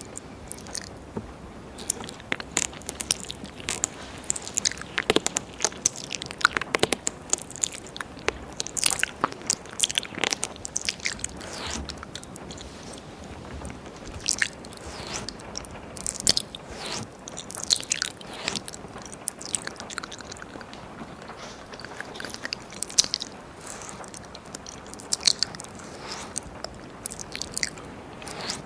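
Wet ear-licking mouth sounds: tongue and lips clicking and smacking right against a 3Dio binaural microphone's ear, in a dense, irregular stream of short clicks.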